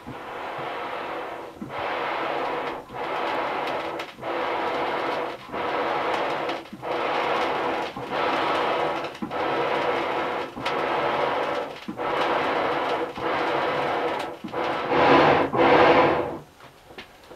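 Hand-pumped wooden double-action box bellows blowing air into a charcoal forge fire: a whoosh of air on every push and pull of the piston, about one stroke every 1.3 seconds, with a click at each reversal. The last two strokes are louder, and the pumping stops about a second before the end.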